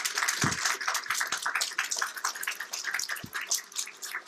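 An audience applauding: many irregular hand claps running together, uneven in loudness.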